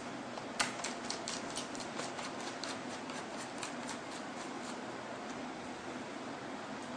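Laptop parts being handled and fitted by hand: a sharp click about half a second in, then a quick, irregular run of small clicks and taps for about three seconds.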